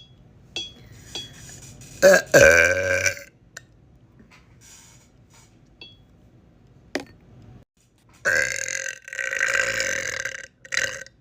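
A woman burping loudly: one deep burp about two seconds in, then a longer run of burps from about eight seconds in, ending with a short one.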